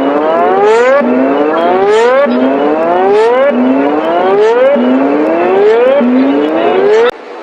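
Electronic whooping alarm tone: loud rising sweeps, about six of them, one every second or so, cutting off abruptly near the end.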